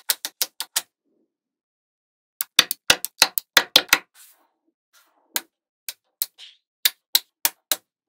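Small metal magnetic balls snapping together with sharp clicks as rows of balls are pressed onto a slab of them: a quick run of clicks at the start, a dense burst of about a dozen in the middle, then scattered single clicks near the end.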